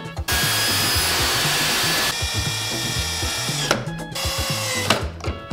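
Handheld power tool, like a drill, running in several runs over background music: the first is a loud, even hiss for nearly two seconds, and the later ones are more whining, with short breaks.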